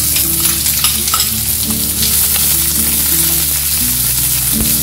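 Chopped onions dropped into hot oil in a frying pan and sizzling steadily, stirred with a slotted spatula that gives light scraping ticks.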